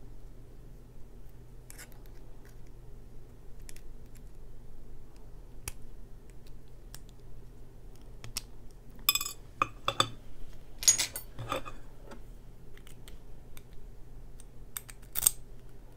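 Small metallic clicks and scrapes from a lock cylinder being worked by hand with its key and tools while the retaining clip on the back is removed. Sparse light ticks at first, then a run of sharper metal clicks a little past halfway and another near the end.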